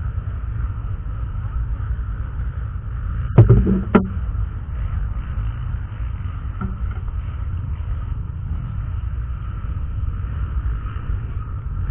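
Low steady rumble of a trail motorcycle riding, with two sharp knocks about three and a half and four seconds in, the loudest sounds.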